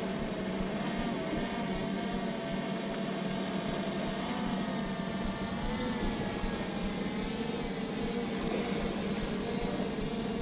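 DJI Mavic Pro quadcopter's propellers whining steadily in flight, the pitch wavering slightly up and down as the rotors change speed.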